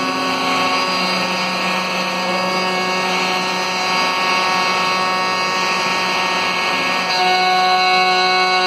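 Router on a Maslow CNC running steadily while its bit cuts through plywood: a steady whine with several tones. About seven seconds in, the tones shift and it gets slightly louder.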